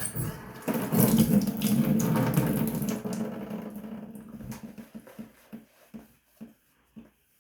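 Tap water running into a sink, strongest for about two seconds and then tailing off, followed by a run of short separate splashes about two a second.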